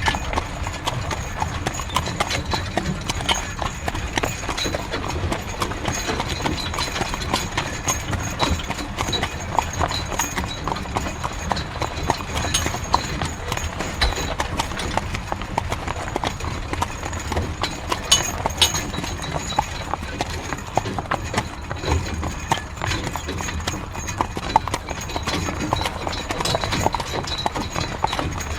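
Horse-drawn carriage on the move: hooves clip-clopping at a steady trot, with the carriage's wheels rolling and creaking along.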